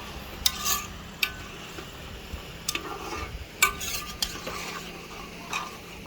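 A metal spoon stirring in a cooking pot, clinking sharply against its side about six times.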